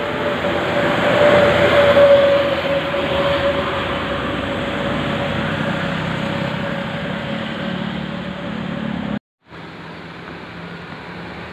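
A large tour bus driving past, engine and road noise swelling about two seconds in with a steady hum over it; the sound cuts off abruptly about nine seconds in and comes back as quieter vehicle noise.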